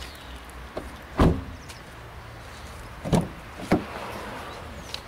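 An open car door being handled: three dull thumps, the loudest about a second in and two more close together around three seconds in.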